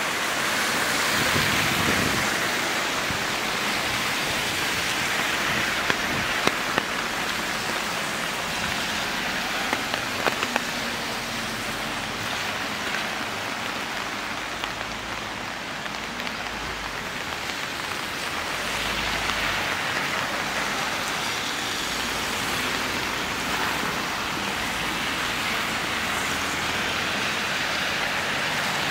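Steady rain falling in a continuous hiss, with a few sharp drip-like clicks about six and ten seconds in.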